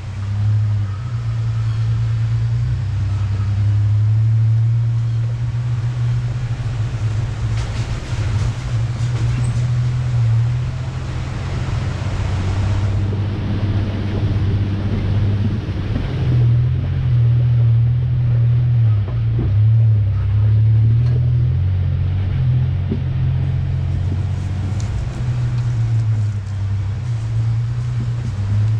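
1993 Ford Ranger pickup's engine running with a steady low drone while the truck is driven slowly on a dirt trail, with scattered clicks and rattles over it.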